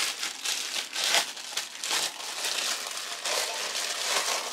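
Plastic packaging bag crinkling and rustling in the hands as a wrapped part is unpacked, an unbroken run of short crackly rustles.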